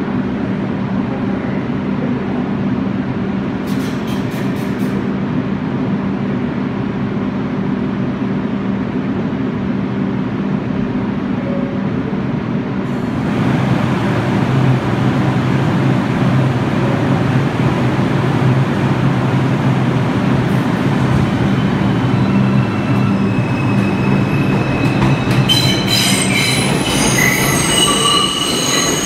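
New York City IRT subway train of the R142/R142A type: a steady low hum, then from about 13 s a louder rumble as a train gets moving. From about 23 s high-pitched wheel squeal rings out as it takes the curved track.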